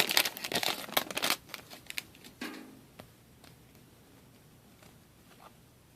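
A trading card pack wrapper crinkling and tearing open for about the first second and a half, then a few faint clicks and near quiet.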